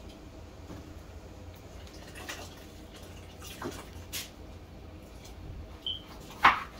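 Washed rice and water tipped from a bowl into a large aluminium cooking pot: a few soft splashes and knocks, then a sharp knock near the end.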